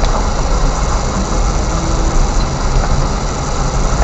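Car driving on a dirt road, heard from inside the cabin: a steady low rumble of the engine and tyres on the unpaved surface.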